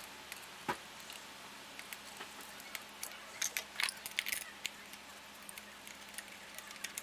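Scattered light metallic clicks and clinks of long-nose pliers and spark plugs knocking against the plug wells as the plugs are pulled out, with a single knock under a second in and a quick cluster of clinks around the middle.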